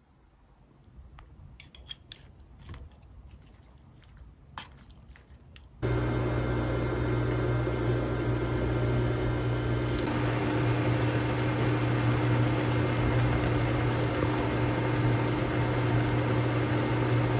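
A few faint clicks and taps of handling, then from about six seconds in a steady, loud fan noise with a low hum: a kitchen range hood running over the stove.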